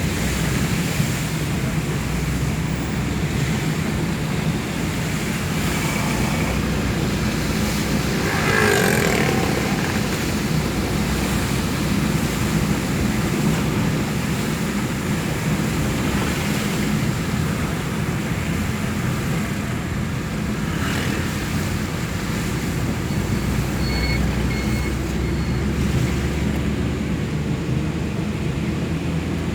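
Steady traffic noise on a rain-soaked road: a vehicle's low engine hum under a constant wash of water and tyre noise. A brief louder swish comes about nine seconds in, and a few short high beeps come near the end.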